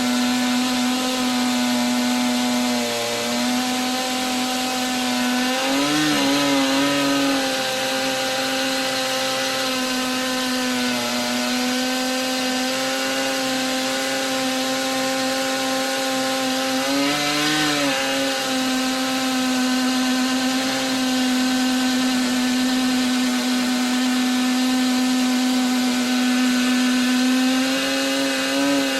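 Stihl MS880 two-stroke chainsaw held at full throttle with a ripping chain, ripping lengthwise through a green pine log on an Alaskan chainsaw mill. The engine note stays steady under load, rising briefly in pitch about 6 seconds in and again near 17 seconds as the load eases.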